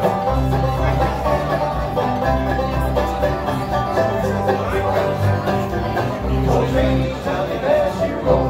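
Live bluegrass music: a banjo picking quick rolls over acoustic guitar, with a steady run of bass notes underneath.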